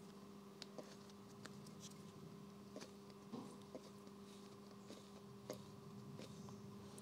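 Near silence: a faint steady hum under a few soft clicks and scratches as hands pick crumbled pieces of a failed rubber drive coupling off a wiper motor's shaft.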